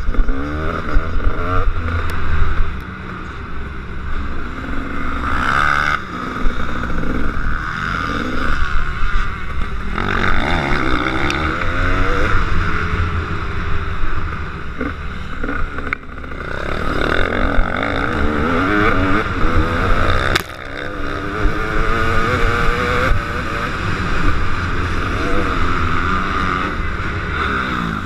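KTM 250 SX two-stroke motocross bike engine being ridden hard, its pitch climbing and falling over and over with throttle and gear changes. The revs drop sharply a few times when the throttle is shut.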